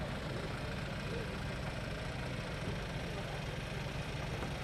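Vehicle engine idling with a steady low rumble, with faint voices of people in the background.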